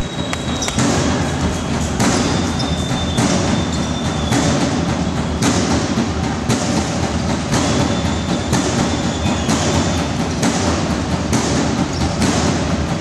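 Basketball-hall noise during play, with sharp thumps coming roughly once a second and a few short high squeaks over it.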